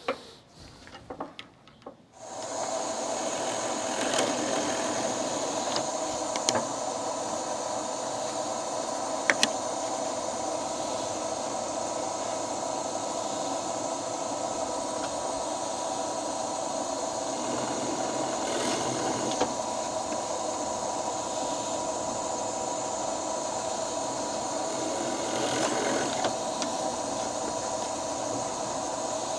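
Shopsmith Mark IV motor switched on about two seconds in after a few knocks, then running steadily as a drill press with a constant hum and whine. A few short clicks and scrapes are heard as holes are drilled in a wooden bandsaw zero-clearance insert.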